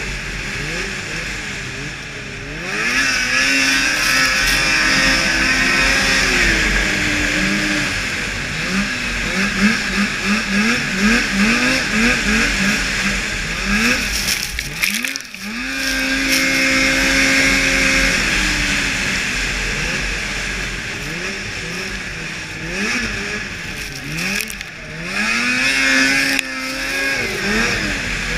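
2002 Blade Striker 600 racing snowmobile engine at racing speed, its pitch climbing again and again as the throttle is backed off and opened through the corners, with a stretch of quick, wavering revs in the middle. About fifteen seconds in the engine drops away briefly, then revs back up. Steady wind rush on the microphone throughout.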